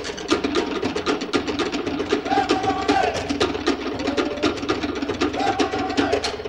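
Cook Islands drum ensemble of wooden slit drums playing a fast, driving roll of strokes for a drum dance. Two short held high notes sound over the drums, about two seconds in and near the end.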